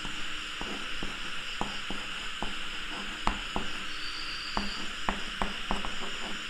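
Chalk writing on a blackboard: irregular sharp taps and light scratches as letters are written, over a steady high hiss.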